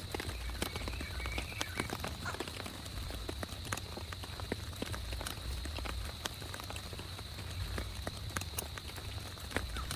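Rain, with single drops striking at irregular intervals over a steady low rumble.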